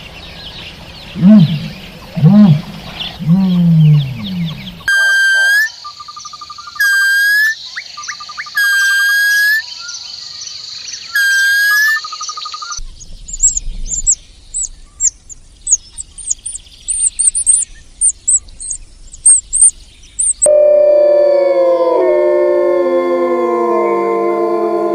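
A string of different animal calls cut one after another. First come deep, arching calls, then a repeated two-part call about once every two seconds. Rapid high chirps follow, and near the end several overlapping howls glide up and down.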